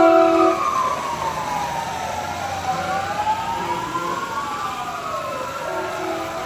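Several emergency-vehicle sirens on passing fire engines and a police van, wailing together in slow, overlapping rising and falling glides. Short steady horn blasts sound near the start and again about four and six seconds in.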